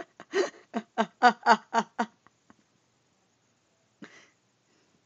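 Puppy barking: a quick run of about seven short, high yaps, roughly four a second, lasting under two seconds.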